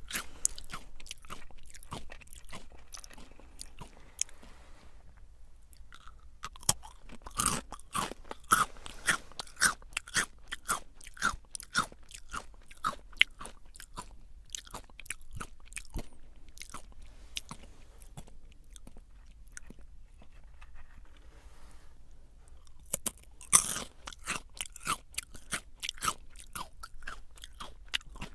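Close-up chewing of Jagarico crunchy potato sticks: a dense run of crisp, sharp crunches as the sticks are bitten and chewed. There are two short lulls, and louder fresh bites come about a third of the way in and again near the end.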